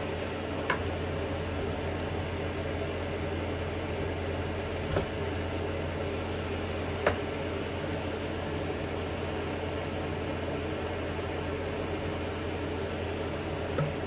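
Steady mechanical hum and hiss, with a handful of short light clicks and taps from small parts and tools being handled on a metal soldering jig.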